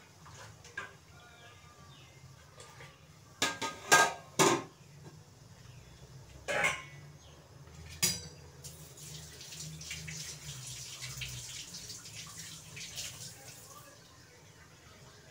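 Metal cookware clattering and clinking: a cluster of sharp knocks, two more clinks a few seconds later with a short ring, then a kitchen tap running steadily for about five seconds.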